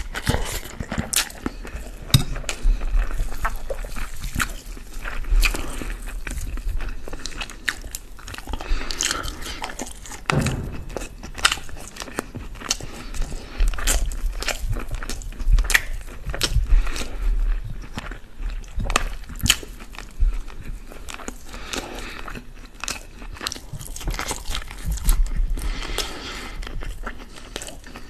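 Close-miked chewing of chicken kabsa and rice, with many small sharp mouth clicks, while hands tear cooked chicken apart.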